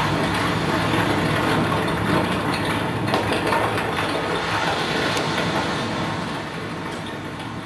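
Electronic soundscape of an interactive audiovisual installation: a dense, rumbling noise texture that begins to fade over the last second or two.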